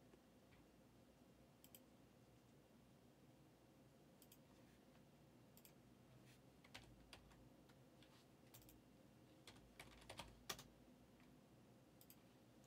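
Faint, irregular clicks of a computer keyboard being typed on, a few keys at a time with pauses between them and a quick flurry about ten seconds in.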